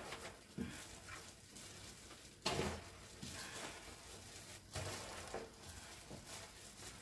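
Fresh cabbage kimchi being tossed by hand in a stainless steel bowl: soft, wet rustling and squelching from the plastic-gloved hands and seasoned leaves, with a couple of louder handfuls about two and a half and five seconds in.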